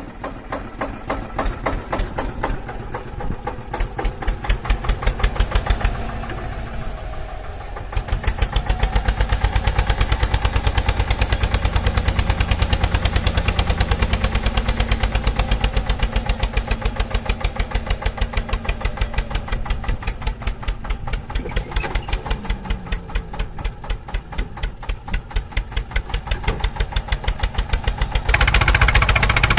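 A vehicle engine running with a fast, even chugging beat, getting louder about eight seconds in and again near the end.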